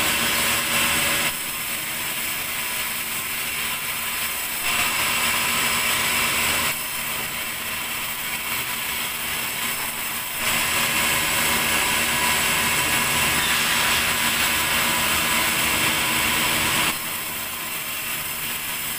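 Large vertical sawmill band saw running, a steady mechanical drone with a high whine. It grows louder in stretches, the longest through much of the second half, and drops back between them, as the blade goes into the log slab being fed through it and then runs free.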